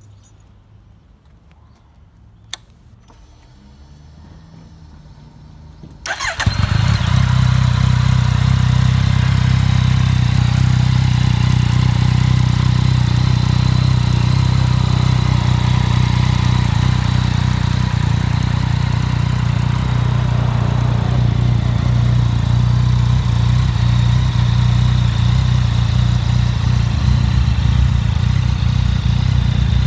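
Yamaha XSR900's three-cylinder engine, breathing through an SP Tadao Power Box full stainless exhaust, is started about six seconds in after a quiet stretch with a single click. It then idles steadily and loudly, with no revving.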